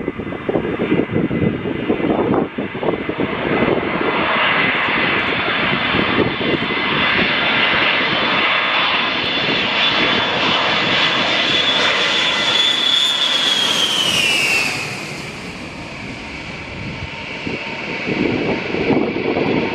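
Jet aircraft passing low on approach to the runway, its engines whining loudly. About fourteen seconds in, the high whine drops in pitch as it goes by and the sound fades, then swells again near the end. Wind buffets the microphone.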